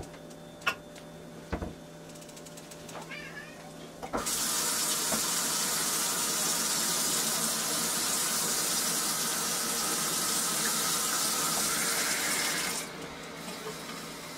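A few light knocks, then a kitchen tap runs in a steady, loud hiss for about eight seconds and shuts off abruptly: water being drawn for the Hamburger Helper.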